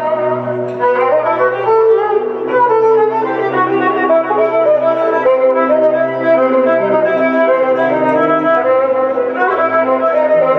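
Live instrumental music from electronic keyboards: a melody of held notes over a low bass line.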